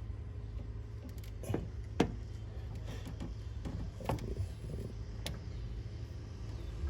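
A few sharp clicks and taps of metal parts or hand tools being handled on an open engine, over a steady low hum.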